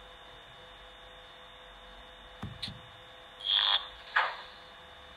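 Sound decoder of a Piko H0 ČD Cargo class 240 model locomotive playing its pantograph sound through the model's speaker: a couple of clicks, then two hisses of air about half a second apart. A steady hum runs underneath.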